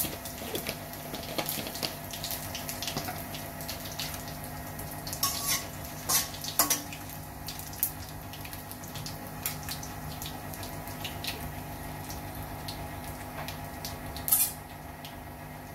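Hot coconut oil sizzling steadily in a stainless-steel kadai as mustard seeds, urad dal, chana dal and dried red chillies fry in it, with scattered sharp pops and crackles and a few louder pops.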